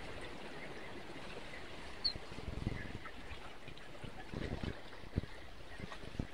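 Steady wash of small sea waves surging against the rock cliff below, with a few light knocks and clicks from handling the spinning rod and reel through a cast.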